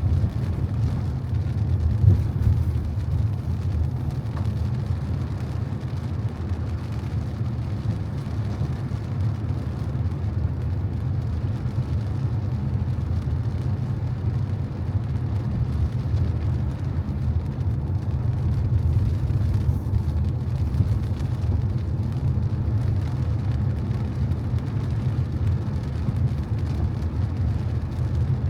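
A car driving on a wet road: a steady low rumble of engine and tyres.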